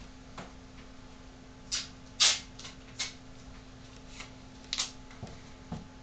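Adhesive tape being pulled and pressed down to hold a Ford ignition lock cylinder in place, heard as a scattering of short rasps and handling clicks, the loudest a little over two seconds in.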